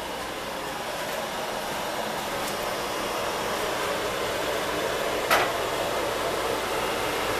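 Steady rushing noise that grows slowly louder, with a single sharp click about five seconds in.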